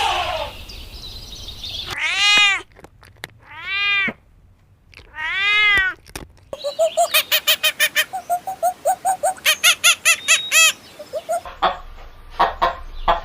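A cat meowing three times, each meow rising and then falling in pitch. Then comes a fast run of short repeated chirping calls, about five a second, for some four seconds, and a few sharp clicks near the end.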